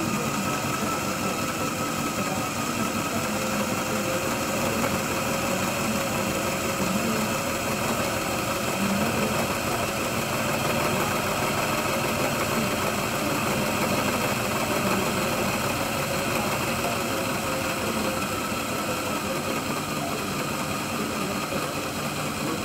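Mainline model GWR 5600 class 0-6-0 tank locomotive running on a rolling road: its small electric motor and gears whir steadily, with the wheels turning on the rollers.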